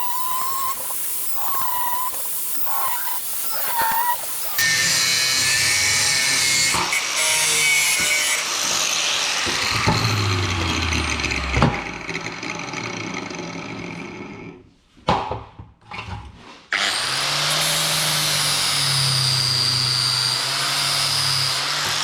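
Power tool cutting and grinding metal exhaust tubing, loud and continuous, broken by abrupt cuts between takes. It drops out briefly with a few short bursts, then a steadier running machine with a low hum takes over.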